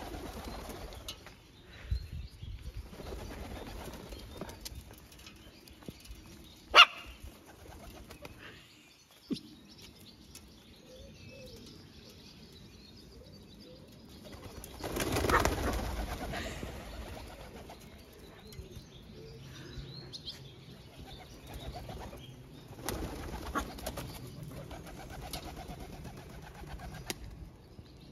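White doves flapping their wings as they flutter off and back onto a windowsill, with pigeon-like cooing. There is a single sharp, loud sound about seven seconds in, and a louder rush of wings about halfway through.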